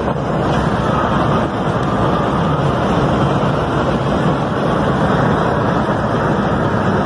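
Steady road and wind noise of a car driving, an even rush with no distinct knocks or impacts.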